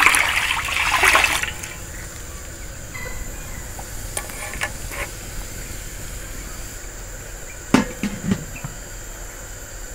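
Water poured from a jug splashing into a wide aluminium steamer pan, stopping about a second and a half in. Then a steady high insect drone, a few light clicks, and two sharp knocks near the end as the metal steamer lid is set on.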